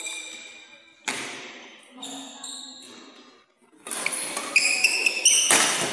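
Badminton rally on an indoor court: sharp racket strikes on the shuttlecock and short squeaks of shoes on the court floor. The strokes come about once a second at first, then grow busier and louder about four seconds in, with one hard hit near the end. Voices murmur in the background.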